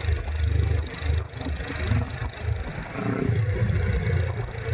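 Small motorcycle engines running along, mixed with an irregular, gusting rumble of wind on the microphone.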